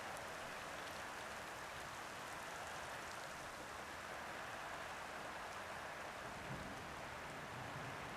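Soft rain falling on a roof: a steady hiss with scattered light ticks of individual drops.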